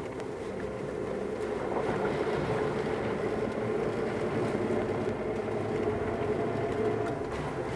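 Suzuki Jimny JB64's 660 cc turbocharged three-cylinder engine running steadily as the car rolls along a dirt track, with tyre and road noise, heard from inside the cabin.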